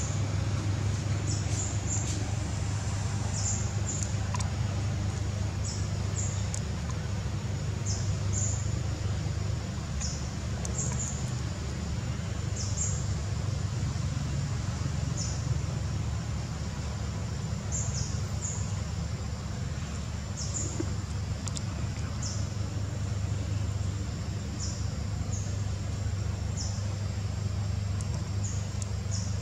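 Short, high, slightly falling chirps repeating about once or twice a second, over a steady low hum.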